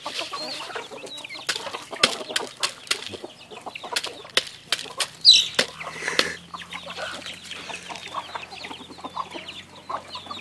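A flock of hens clucking and calling softly while pecking feed off gravelly ground, with many scattered sharp clicks. One louder call comes about five seconds in.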